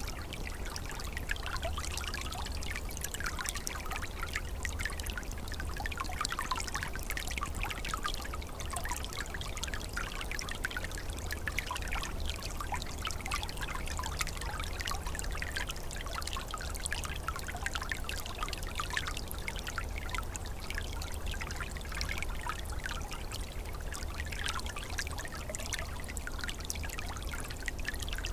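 Small forest stream flowing over stones, a steady babbling and trickling of water full of tiny splashes, with a low rumble underneath.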